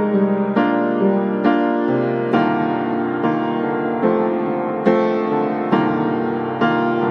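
Relaxing piano background music, with a new chord struck roughly every second and ringing on between strikes.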